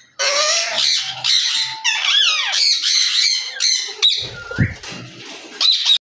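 Ringneck parakeets squawking and screeching in a rapid run of shrill calls, many sweeping sharply up and down in pitch.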